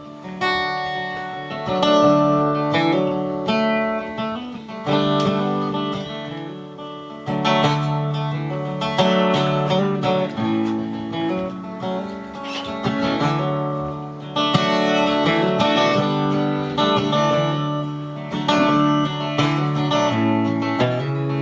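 Acoustic guitar strumming and picking an instrumental break between verses of a live folk song, with chords changing steadily.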